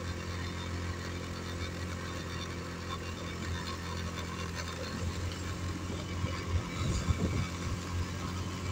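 Small motorcycle engine running steadily at low revs as it rides along, a constant low hum, with a few louder bumps about seven seconds in.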